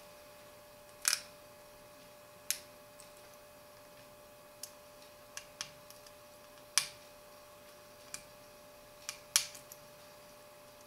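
Small screwdriver and BlackBerry Bold 9700 parts clicking and tapping as the phone's screws are snugged down: a dozen or so sharp, irregular clicks, the loudest about a second in, near seven seconds and near nine and a half seconds.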